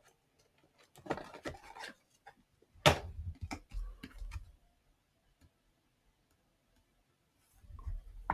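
Trading cards and their packaging being handled: a flurry of soft card clicks and rustles, then a sharp tap about three seconds in followed by a few lighter clicks.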